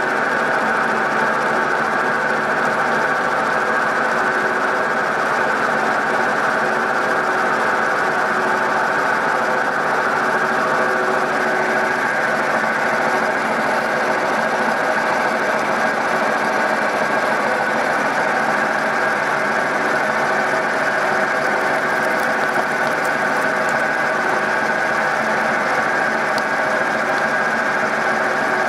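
Milling machine running in the highest gear of its low range, a large end mill cutting into a metal part with a steady drone of the cut and a constant whine from the gears.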